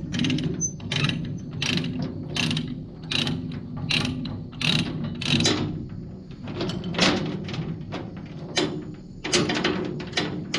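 Ratchet chain binder being cranked, clicking about once every 0.7 s: the tie-down chain holding the forklift to the trailer is being loosened for unloading.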